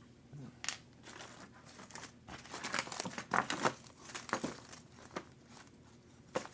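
Rummaging through plastic hardware bags and small parts: irregular crinkling and rustling with small clicks, ending in one sharp click.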